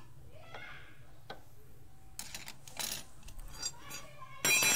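Hand tools (locking pliers and a screwdriver) clicking and scraping on metal as an aluminium plate is pried off a Honda Wave S100's crankshaft, with a short ringing metallic clatter near the end.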